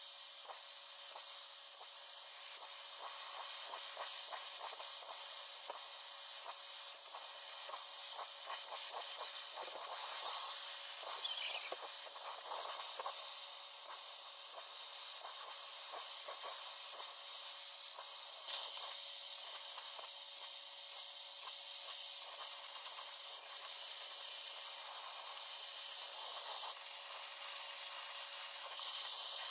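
Tideway negative-ion hair dryer running, a steady hiss of rushing air with a faint constant hum, set to alternate warm and cool air while drying hair. A brief louder sound about eleven seconds in.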